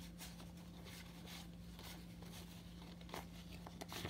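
Faint rustling of paper banknotes being handled and counted on a table, with a few light taps near the end.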